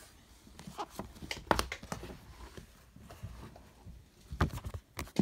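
Handling noise: scattered light knocks and rustles as books are moved about and the phone is handled, with a cluster of knocks about a second and a half in and another near the end.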